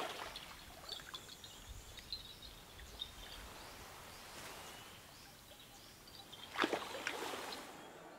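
Outdoor riverside ambience: a soft steady hiss with faint high bird chirps, and one brief louder sound about six and a half seconds in.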